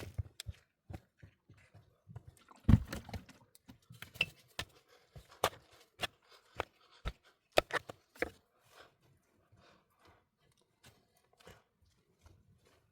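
Irregular knocks, clicks and crunches of hands working with materials, with two louder thuds about three seconds and seven and a half seconds in.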